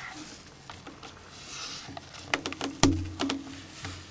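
Light rubbing, then a quick run of sharp small clicks a little past halfway, from hands handling a mobile phone and putting protective film on its window.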